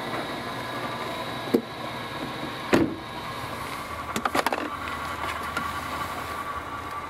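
Car door shutting with a heavy thump, after a lighter knock. About four seconds in comes a quick run of clicks, and then the car's engine settles into a low, steady idle.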